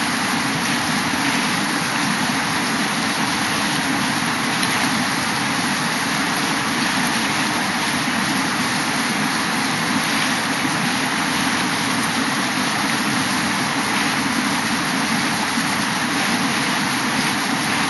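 Swirling river water rushing around rocks: a steady, unbroken noise.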